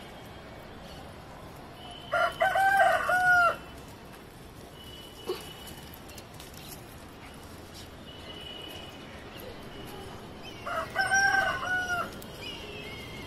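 A rooster crowing twice, each crow about a second and a half long, some eight seconds apart.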